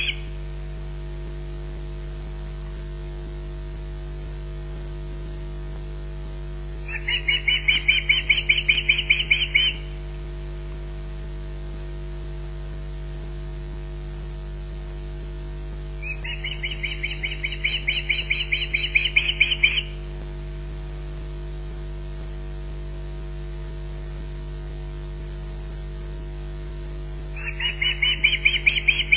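Osprey warning chirps: three bouts of quickly repeated high chirps, each about three seconds long, starting about seven, sixteen and twenty-seven seconds in, given at corvids near the nest. A steady electrical hum sits beneath them.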